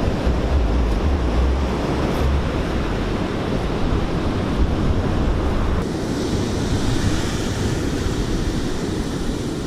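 Ocean surf breaking and washing up a sandy beach, a steady rush of waves. Wind buffets the microphone with a low rumble in the first couple of seconds, and the surf turns brighter and hissier about six seconds in.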